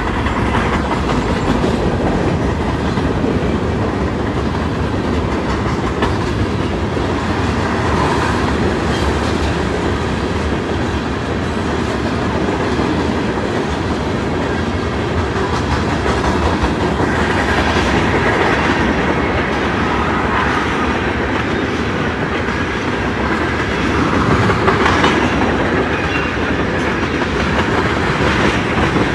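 Freight cars of a long freight train rolling past close by: a steady rolling noise with the clack of steel wheels over the rails.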